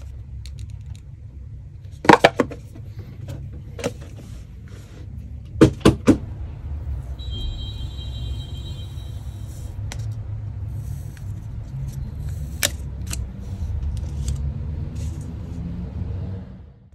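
Unboxing handling sounds: a few sharp clicks and taps of the cardboard box and packaging being handled, with a brief high, thin squeak and rustle about seven seconds in as the speaker's protective wrap is worked off, over a steady low rumble.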